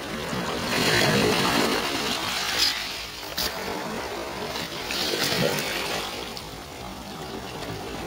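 Small waves washing up over a shore of pebbles and broken shells and draining back, surging twice about four seconds apart. A couple of sharp clicks come between the surges.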